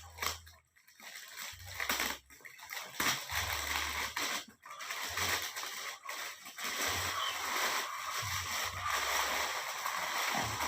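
Water splashing and sloshing as a leaking plastic fish-shipping bag is handled and opened, an uneven, continuing splatter.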